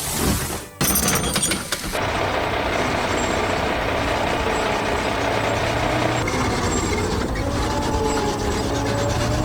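Heavy construction vehicle engine running steadily. It starts after a short hiss like an air-brake release that cuts off suddenly, followed by about a second of clattering.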